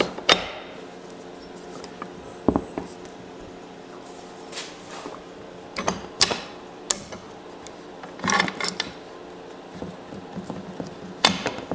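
Metal pipe clamps being set and tightened on a glued-up wooden board: scattered sharp clicks and knocks of the clamp jaws and handles on the steel pipes, with a busier cluster about eight seconds in, over a faint steady hum.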